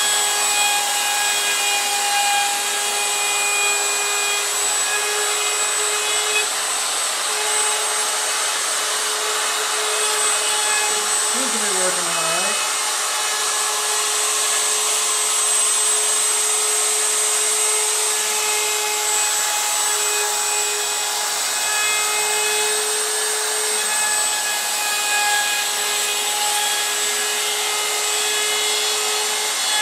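DeWalt compact router running at a steady high speed with a 1/8-inch roundover bit cutting along the edge of a knotty pine cabinet door: a constant whine over the noise of the bit in the wood. About twelve seconds in, a brief lower sound dips and rises in pitch.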